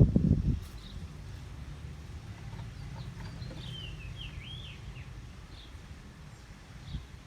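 A small bird giving a quick run of wavering, high chirps a few seconds in, with a few single faint chirps before and after, over a steady low hum. A short burst of low rumbling noise comes at the very start.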